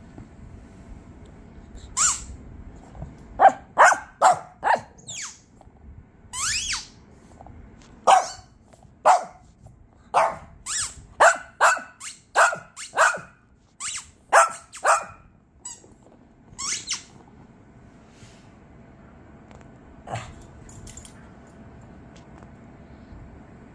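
Small long-haired dog barking in a quick series of short yaps, some coming in rapid pairs, which stop about two-thirds of the way through, with one more bark near the end.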